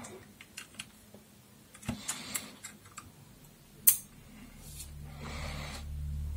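Small plastic clicks and taps from hands working cable connectors and plastic parts inside an opened toy robot, with one sharp click about four seconds in. A low steady hum rises in the last second or two.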